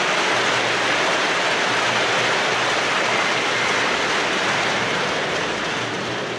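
Large crowd applauding steadily, easing off near the end.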